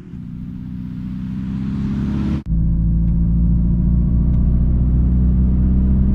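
Car engine sound building up steadily. About two and a half seconds in it cuts off sharply and gives way to a louder, steady low rumble.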